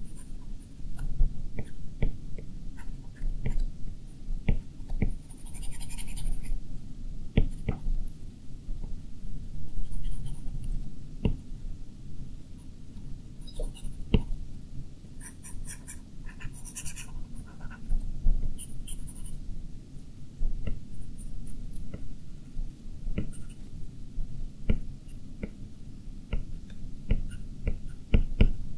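A stylus tapping and scratching on the glass screen of a 12.9-inch iPad Pro during drawing: irregular light taps, with a few brief scratchy strokes in the middle.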